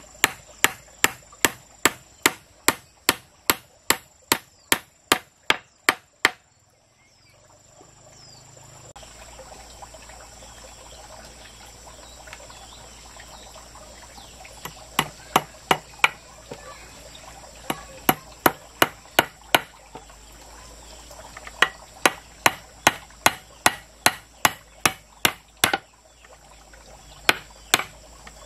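Runs of sharp, regular blows of a hand tool striking wood, about three a second, broken by a few seconds of quieter rustling noise after the first run. A steady high-pitched insect call carries on underneath.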